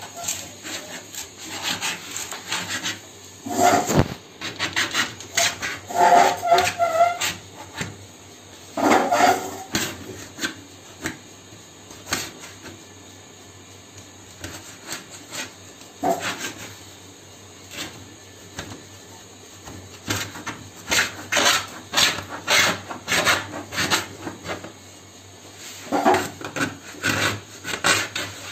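A cutter blade scraping around a pivot to score a circle into a sheet of sunmica (decorative laminate), in runs of short rasping strokes with pauses between them. A few short squeaks come in the first ten seconds or so.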